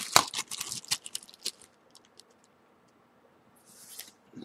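Light clicks and taps of small smartphone parts being handled, several in the first second and a half, then a short rustle near the end.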